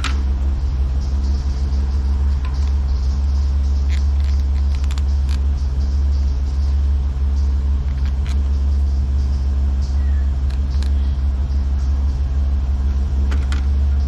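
Tow truck's engine idling with a steady low rumble, with a few faint clicks over it.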